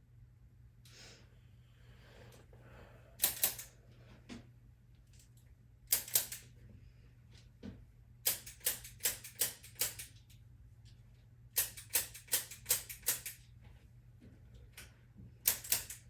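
Sharp clicks of a chiropractic adjustment, some in pairs and two runs of five or six evenly spaced clicks at about two to three a second, over a faint steady hum.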